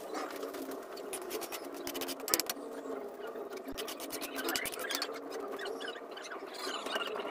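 A metal ladle scraping and stirring tomato sauce in a metal pan over a wood fire, with many sharp crackling ticks from the fire. There is a louder knock about two and a half seconds in.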